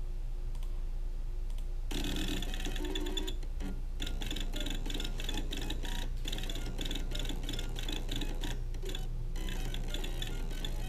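NEMA 23 stepper motors, driven step by step from Mach3, playing a tune: a run of changing buzzy notes that starts about two seconds in and continues. A steady low hum underlies it throughout.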